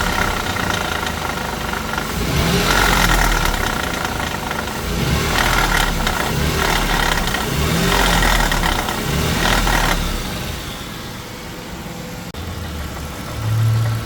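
Dodge Intrepid 2.7 L V6 revved in a series of short blips, each bringing up a rattle from the catalytic converter, whose internal substrate has broken up and is loose inside the can. About ten seconds in the blips stop and the engine settles to a steadier idle.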